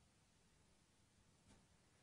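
Near silence: faint room tone and hiss, with one faint click about one and a half seconds in.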